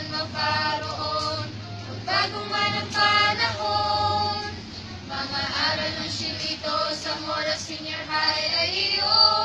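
A choir singing a hymn together, in sung phrases of a few seconds with short breaks between them.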